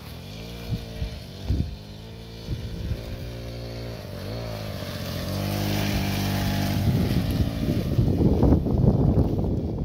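Small mini motorbike engine revving up and down in pitch, several times. In the last few seconds it gets louder and rougher.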